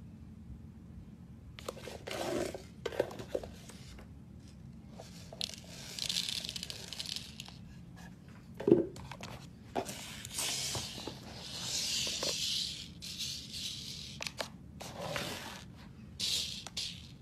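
Cardboard palette boxes and packaging being handled: irregular rustling, scraping and crinkling in short bursts, with one sharp knock about nine seconds in.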